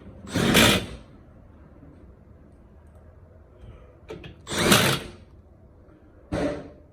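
Cordless power drill driving in fasteners in three short bursts: one near the start, one about halfway through and a briefer one near the end, securing the new blower motor in its housing.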